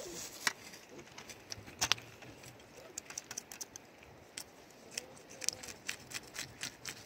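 Knife scraping scales off fresh fish: a run of short, sharp scraping strokes, irregular at first and coming thicker and faster in the last couple of seconds.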